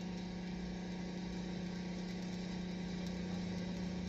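IndyCar race car engines idling steadily, a constant low hum while the cars wait to start.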